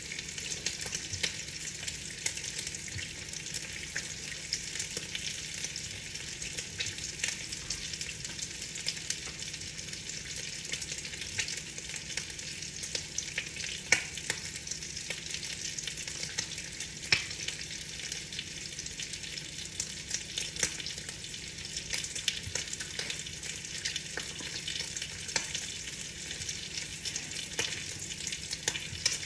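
Rain pattering on a window: a steady fine hiss of drops tapping the glass, with a couple of louder taps about halfway through.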